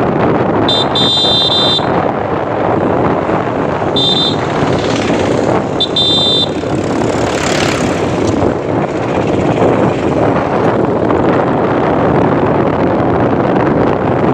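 Steady noise of a moving passenger train, heard from inside the coach. Three brief high-pitched tones cut through it about 1, 4 and 6 seconds in.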